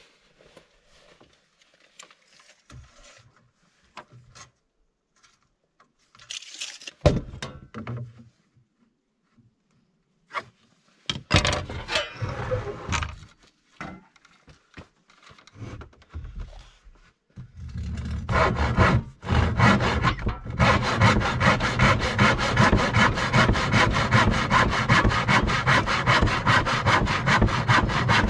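Handsaw cutting across a 2x6 wooden board, with steady, even back-and-forth strokes that start about two-thirds of the way in. Before that come scattered knocks and scrapes.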